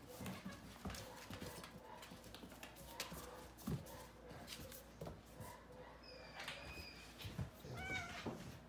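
A pit bull puppy and a cat play-fighting on a hardwood floor: scuffling, thumps and the clicking of claws on the wood. Near the end come two short high-pitched animal cries.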